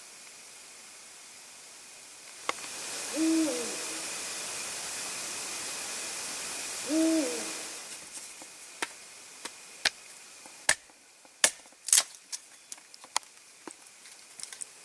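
An owl hooting twice, single low hoots about four seconds apart, over a steady hiss. From about eight seconds in comes a scattered run of sharp clicks and knocks.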